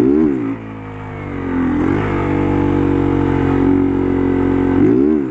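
Honda CG 160 Start's single-cylinder engine revved up sharply and dropped back twice, at the start and again near the end: throttle pops to lift the front wheel into a low-speed wheelie. In between it runs steadily under light throttle, climbing a little in pitch about two seconds in.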